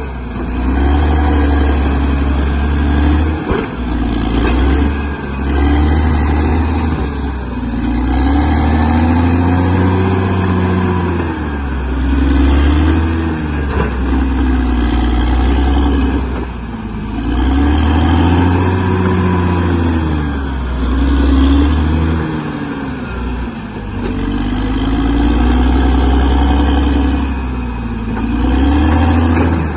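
Bulldozer's diesel engine running under load, its pitch rising and falling every few seconds as it revs up and eases off.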